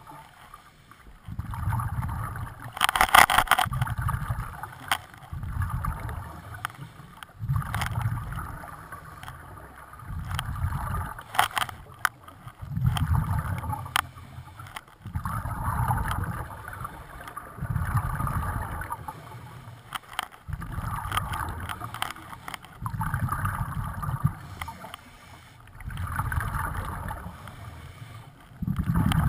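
Scuba diver breathing through a regulator, heard underwater: a hissing inhale, then a low bubbling rumble of exhaled bubbles, in a slow cycle about every two to three seconds.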